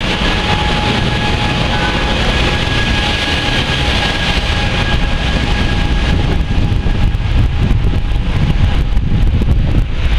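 Wind buffeting the microphone with rushing road noise from a camera moving along a street with a group of bicycles. A faint steady whine sits under the noise and fades out after about six seconds.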